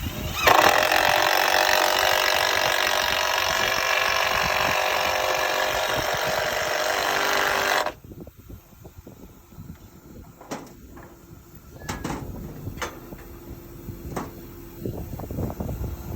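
Pneumatic palm nailer hammering nails into metal joist hangers, a loud steady rapid rattle that starts abruptly and stops suddenly about eight seconds in. A few sharp knocks follow.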